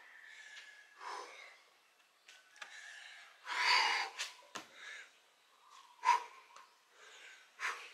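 A person breathing hard while doing burpees, with loud gasping breaths and sharp exhalations, and several short knocks from the body moving and landing.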